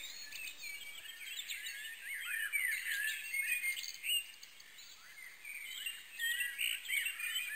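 Several birds chirping, a dense overlapping chorus of short rising and falling notes, busiest a couple of seconds in and again near the end.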